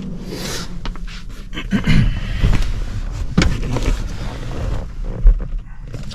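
Handling noise from fitting a 3D-printed plastic firewall pass-through around a wiring harness: irregular scraping, clicks and knocks with a few dull thumps, the sharpest knock about five seconds in.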